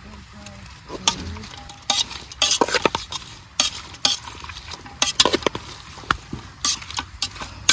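A metal spoon stirring and scraping in a cooking pot, with irregular clinks and knocks against the pot, over faint sizzling of frying food.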